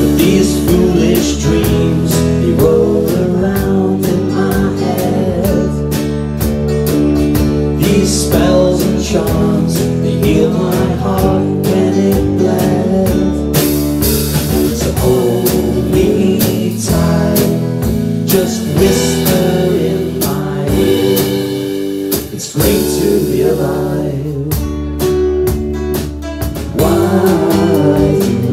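Live rock band playing a song: strummed guitars, bass guitar and drum kit.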